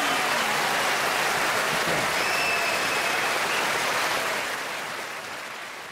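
A large audience clapping steadily, then the applause fades away over the last couple of seconds.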